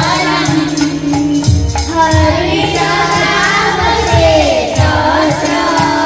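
A group singing a devotional song together, accompanied by repeated drum beats and jingling percussion.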